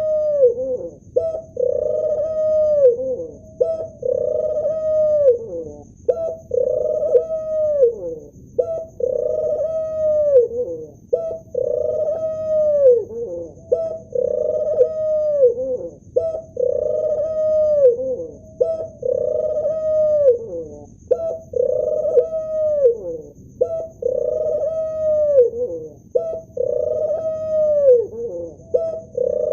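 Male ring-necked dove cooing over and over, one low coo about every two seconds, each ending in a falling glide.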